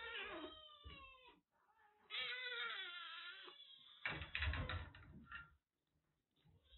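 Kitten meowing: two long, drawn-out cries, the second wavering in pitch. A cluster of knocks follows about four seconds in.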